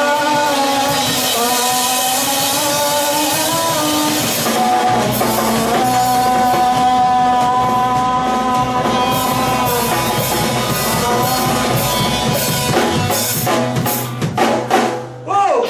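Psychedelic rock band playing an instrumental passage: sustained guitar lines bending in pitch over drums, with the bass coming in about five seconds in and a run of sharp drum hits near the end.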